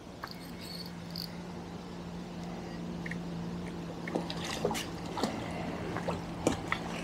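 A hooked carp splashing and thrashing at the lake surface as it is played on the line, with several sharp splashes in the second half, over a steady low hum.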